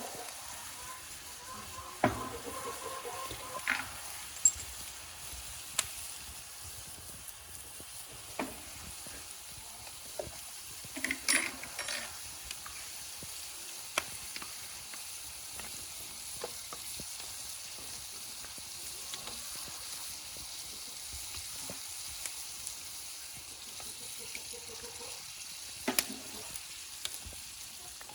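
Mhajeb frying in oil on a hot pan, a steady sizzle. Scattered sharp clicks and taps of a utensil against the pan come through it, with the loudest cluster about eleven seconds in.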